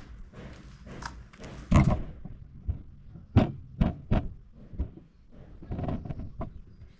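Several sharp knocks and thuds close to the microphone as the camera is handled and moved, the loudest about two seconds in and three quick ones around three and a half to four seconds in, between lighter scraping and shuffling.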